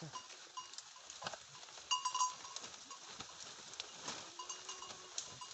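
Goats grazing in forest: a faint drawn-out bleat about four seconds in, among short bright ringing notes that are loudest about two seconds in.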